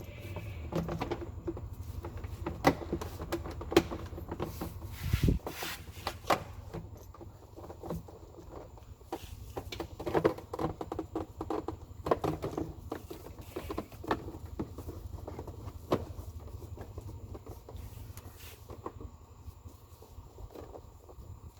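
Hands and tools working on engine parts: scattered clicks, taps and rustling, the sharpest knocks about 2.5 and 4 seconds in, over a steady low hum.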